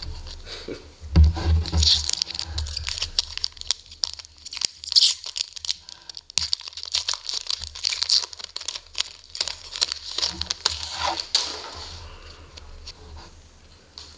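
Foil trading-card pack wrapper being torn open and crinkled by hand: a run of crackles and rips that dies away near the end.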